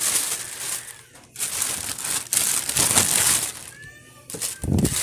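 Plastic covers rustling and crinkling as they are handled, in irregular stretches, with a short arched tone about four seconds in and a low thump just before the end.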